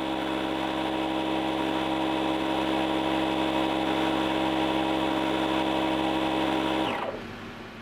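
A 12-volt air compressor runs steadily with an even motor hum, then is switched off about seven seconds in and winds down, falling in pitch as it stops.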